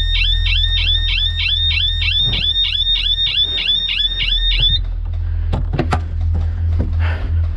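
A repeating electronic chirping alarm, about three chirps a second, each falling quickly in pitch and then holding; it stops abruptly almost five seconds in. It sounds over a steady low hum, and a few sharp clicks follow about six seconds in.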